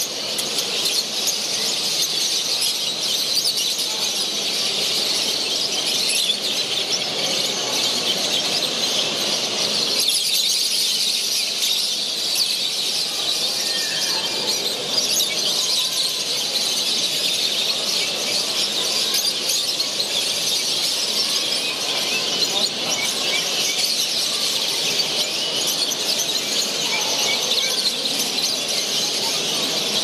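Many caged songbirds, finches among them, chirping and singing all at once: a dense, unbroken chatter of short high calls over a low hall murmur.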